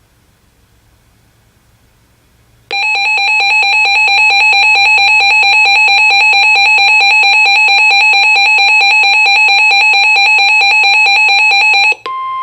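Weather radio alert alarm for a Special Marine Warning: a loud, rapidly pulsing electronic beep that starts about three seconds in and runs for about nine seconds. Just before the end it cuts off and a steady single warning tone begins.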